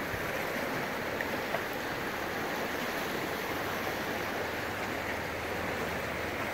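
Steady rush of a shallow river running over riffles and around a jam of fallen logs.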